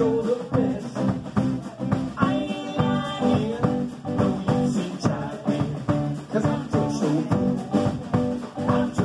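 Live blues band playing: electric guitar and electric bass over a drum kit with a steady beat.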